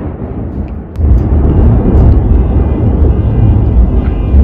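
Close thunder: a sharp crack about a second in, then a loud, low rumble that carries on.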